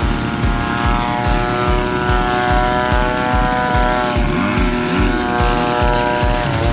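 Extreme Flight 91-inch Laser EXP radio-controlled aerobatic plane's engine and propeller running steadily in flight. The pitch bends up and down about four seconds in and again near the end as the plane manoeuvres.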